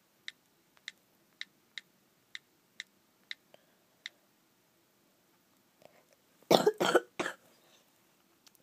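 iPod Touch on-screen keyboard clicking with each key tap, about two taps a second, through the first four seconds. About six and a half seconds in come three short, loud coughs.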